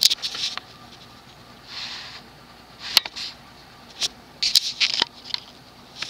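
Evergo 3-speed industrial ceiling fan running steadily at medium speed. Over its low steady air noise come irregular short, high clicks and chirps, loudest about three seconds in and again near five seconds.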